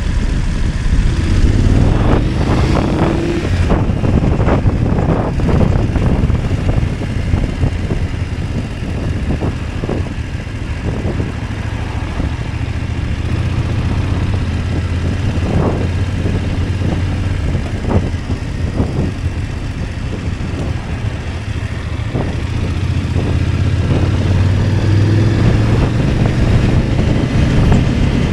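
BMW 850 GS motorcycle engine running at road speed under wind and road noise, with brief thumps scattered through. The engine grows a little louder near the end.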